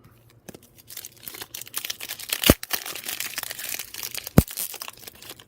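Crinkling and tearing of a trading-card pack's foil wrapper being ripped open by hand, with two sharp snaps as the wrapper tears, the second near the end.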